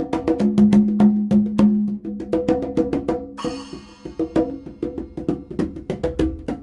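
Congas played by hand in a fast, steady pattern of strikes, with ringing open tones under the sharper slaps and a brief hiss a little past the middle.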